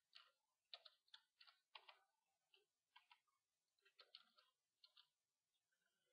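Faint computer keyboard typing and mouse clicks: irregular light clicks, some in quick clusters of two or three.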